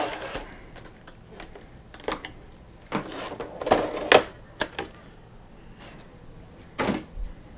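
Stiff clear plastic blister packaging crackling and crinkling in irregular bursts as it is pried open and a plastic sleeve is pulled off a figure; the loudest bursts come in the middle and near the end.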